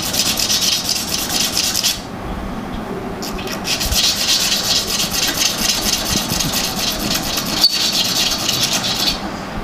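The small metal contact point of an electric horn rubbed quickly back and forth on abrasive polish paper, a fast even scraping that scours off the carbon fouling that stopped the horn working. The scraping stops for about a second two seconds in, then resumes and stops again just before the end.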